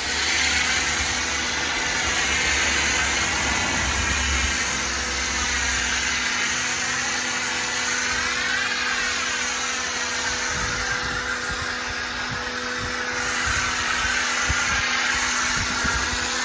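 Nilfisk pressure washer running with its Super Foam Sprayer turned up to a dense-foam setting: a steady motor hum under a loud hissing spray of foam, the hiss slowly rising and falling in tone.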